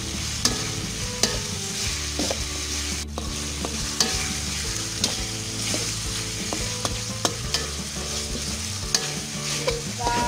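Metal spatula scraping and clinking against a metal wok while stirring chopped tomatoes and spice paste that sizzle steadily in hot oil; the spatula strikes come at irregular intervals, roughly once a second.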